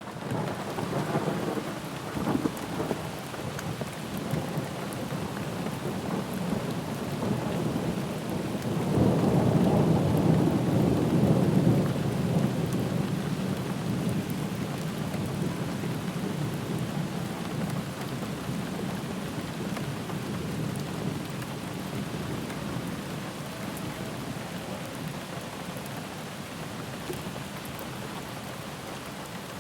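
Steady rain with rolling thunder: a low rumble swells about nine seconds in and dies away slowly.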